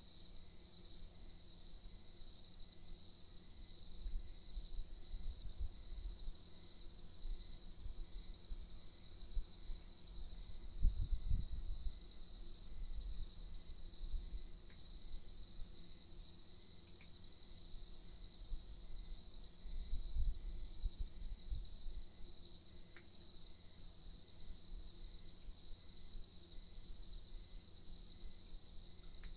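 Crickets chirping in a steady, fast-pulsing night chorus. A low rumble rises under it twice, about a third and about two thirds of the way through.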